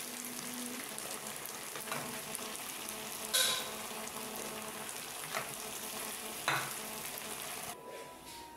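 Chicken pieces sizzling in hot coconut oil in a frying pan while they are lifted out with a slotted spatula, with a few sharp knocks of the spatula against the pan. The sizzle cuts off near the end.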